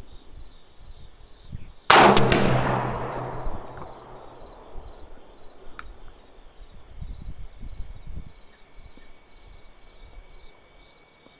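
A single rifle shot from an AR-15 firing a Sierra 77-grain handload, about two seconds in, with a long echo that dies away over about two seconds. Crickets chirp steadily behind it.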